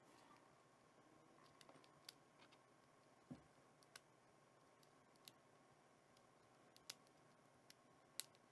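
Faint, scattered small clicks and taps as the chrome top cover of a 2nd-generation 8GB Microsoft Zune is pushed and worked into its slot, about half a dozen over several seconds.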